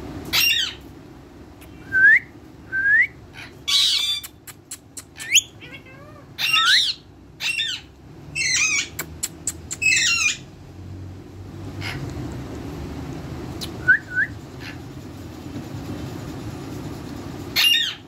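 Indian ringneck parakeets giving a series of short calls, bunched in the first ten seconds with one more near the end, with a few brief rising whistled chirps in between.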